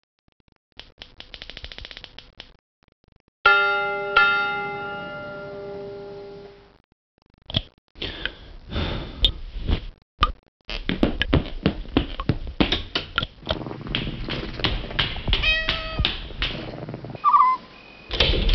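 A rapid rattling buzz, then two struck ringing tones that die away slowly, then a busy run of knocks and clatter with a cat meowing near the end.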